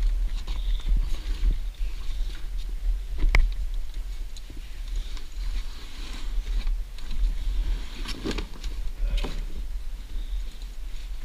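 A steady low rumble with scattered sharp clicks and knocks: the strongest knock comes about three seconds in, and a cluster of clicks follows near the end.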